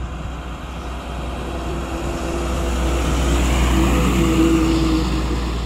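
Bulk cement tanker truck driving past: engine rumble and tyre noise build as it approaches, loudest about four seconds in, then ease slightly as it goes by.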